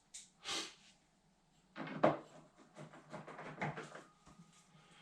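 Small clicks and knocks of hands handling the dryer's cover and its screws during reassembly. A short scraping noise comes about half a second in, then a couple of seconds of clicks and taps, the loudest about two seconds in.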